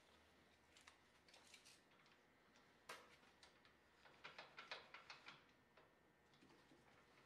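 Faint clicking and ticking from a steel tape measure being handled while measuring bar stock: a sharper click about three seconds in, then a quick run of ticks a second later.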